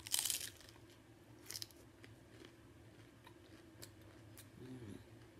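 Hard corn taco shell crunching as a bite is taken: a loud crunch right at the start and another about a second and a half in, followed by fainter chewing crunches.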